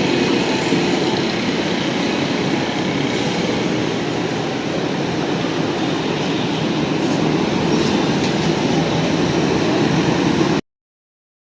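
Orange Line electric metro train running, a steady rumble without a clear rhythm. The sound cuts off suddenly near the end.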